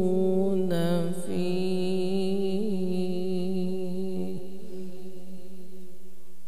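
A man's voice in melodic Quran recitation (tajweed), holding one long, nearly level note with a slight waver, heard through a microphone. The note breaks off at the end.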